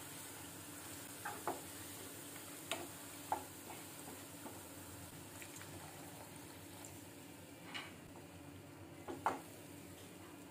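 Egg curry masala sizzling in a non-stick frying pan as it is stirred, with a steady hiss and half a dozen sharp knocks of the spatula against the pan. The loudest knock comes near the end.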